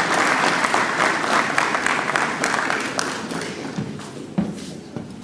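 Audience applauding an award recipient, loud at first and then dying away over the last couple of seconds to a few scattered claps.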